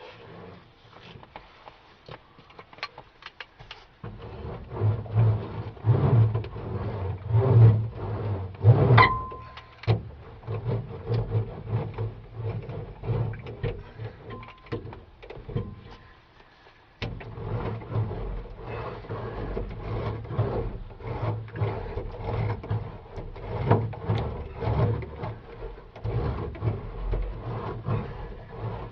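Irregular knocking, rubbing and crinkling as sheets of sound-deadening insulation are handled and pressed up against the inside of a truck cab roof, with quieter stretches near the start and about halfway through.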